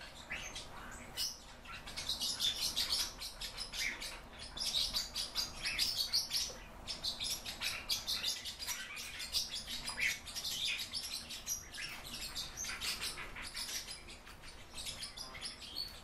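Pet fieldfare calling: a fast, nearly continuous run of short, high, sharp calls, many each second, with only brief pauses.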